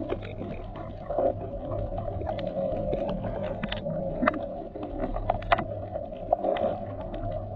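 Muffled underwater sound: a steady low hum and murmur with irregular sharp clicks and crackles, several a second.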